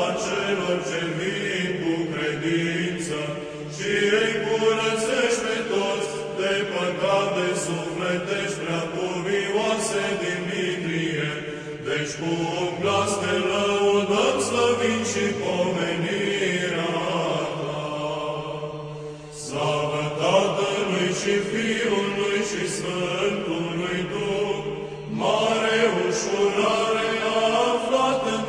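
Orthodox Byzantine-style chant of a prayer canon: a melodic vocal line moving in phrases over a steady, low held drone (ison), with a brief pause between phrases a little past the middle.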